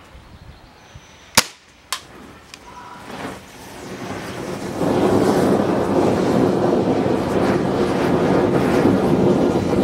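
An air rifle shot, then a second sharp crack about half a second later; the punctured, swollen 5.3Ah 3S Turnigy LiPo battery then starts venting, a hiss that builds from about three seconds in and becomes a loud, steady rushing jet of gas and smoke from about five seconds in: the cells going into thermal runaway.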